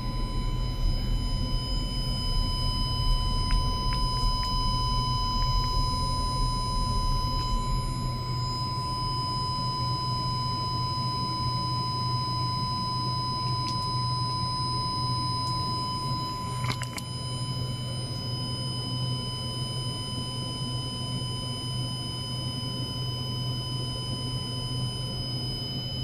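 Steady electronic whine of several fixed high tones over a low hum from ultrasonic oscillation and measurement equipment, a function generator driving an ultrasonic probe. There is a brief click about 17 seconds in, where the lowest tone cuts off.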